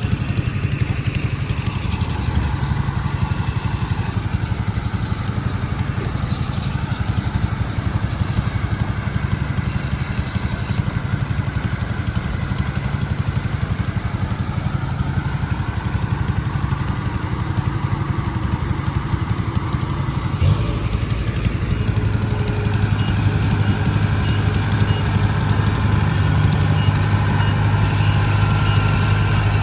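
Engine of harvesting machinery in a muddy rice field, running steadily throughout. About two-thirds of the way in there is a short knock, and after it the engine note is louder and steadier.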